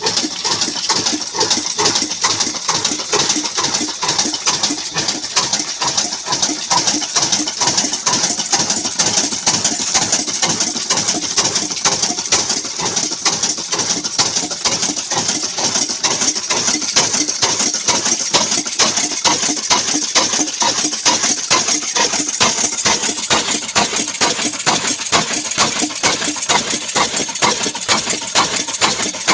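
Old black Ruston Hornsby-type diesel engine running steadily with a rapid, even beat.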